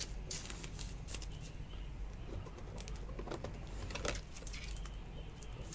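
Faint handling of a trading card and clear plastic card holders, with a few light clicks and taps over a low steady hum.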